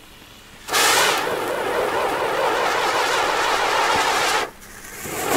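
Firework sun wheel (Strahlensonne) burning: a loud hissing spray of sparks starts suddenly about a second in. Near the end it falls away briefly and then starts again louder.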